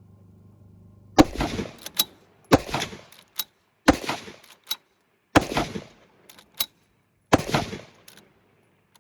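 Rifle fired five times, a shot every second and a half or so, each shot trailing off briefly, with a fainter sharp click between shots.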